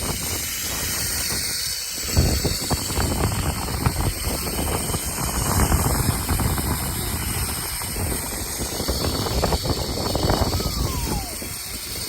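Zipline trolley running along the steel cable, with wind rushing over the microphone. There is a steady rumble from about two seconds in, and a brief falling whine as it slows near the end.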